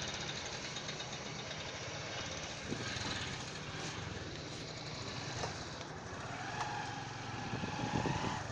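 Diesel engine of a Dasmesh combine harvester running steadily, with a low, even drone.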